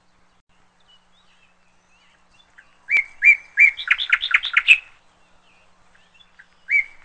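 A small bird singing. A phrase of a few clear notes quickens into a rapid run of higher notes, lasting about two seconds and starting about three seconds in. The same phrase begins again near the end.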